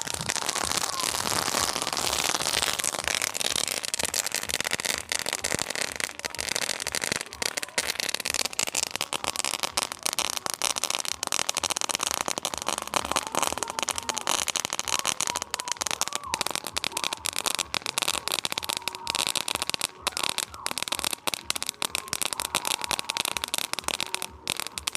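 A firework crackling steadily: a dense stream of small sharp pops over a constant hiss.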